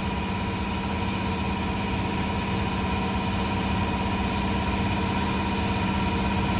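A steady machine hum with a constant low drone and fixed tones, unchanging throughout.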